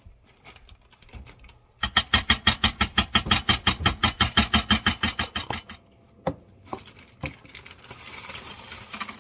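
A fast, even run of sharp knocks, about eight a second, lasting about four seconds. A few single clicks follow, and a faint hiss rises near the end.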